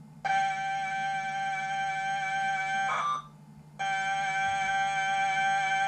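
TRS-80 Model 100 cassette data in the computer's normal compressed format, played back through a Sony portable cassette recorder's speaker. It is a steady buzzing data tone that lasts about two and a half seconds and breaks off with a short garbled burst. After about half a second's pause, a second identical stretch of tone begins.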